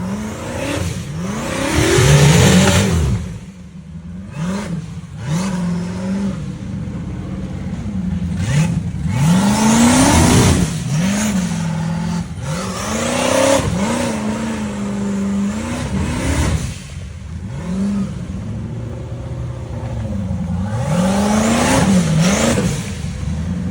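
Off-road racing buggy engine running hard, its revs climbing and dropping again and again as the throttle is worked, with the loudest surges about two seconds in, near the middle, and near the end.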